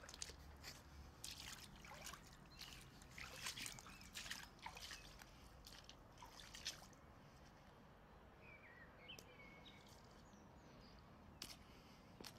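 Faint footsteps scuffing and crunching over a wet, grit-covered flat concrete roof, an irregular run of small clicks and scrapes for the first six or seven seconds. After that it goes quieter, with a few faint bird chirps.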